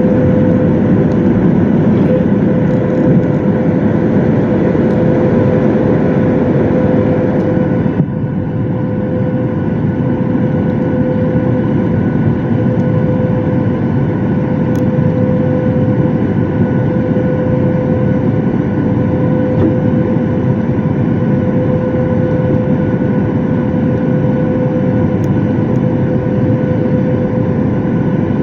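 Airliner's jet engines at high thrust heard from inside the passenger cabin: a loud, steady rush with a steady whine over it. About eight seconds in, the highest part of the hiss drops away abruptly.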